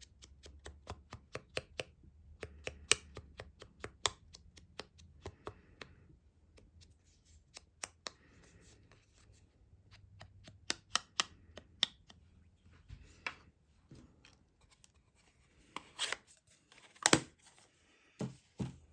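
Hands working with cardstock and paper-crafting supplies on a tabletop: irregular sharp taps and clicks, several a second at first, with a few louder knocks near the end.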